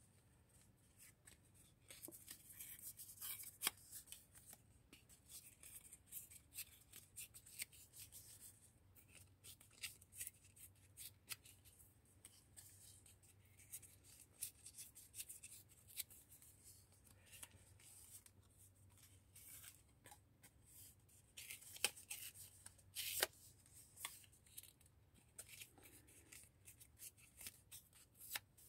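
Faint rustling and crinkling of thin paper being handled close up, with scattered light clicks and a few louder ones a little past twenty seconds in.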